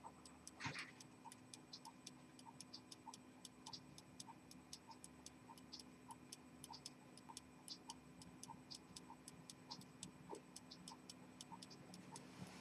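Faint, steady ticking of a 19th-century French rose-gold pocket watch with a cylinder escapement, at about five ticks a second. There is one brief louder noise about half a second in.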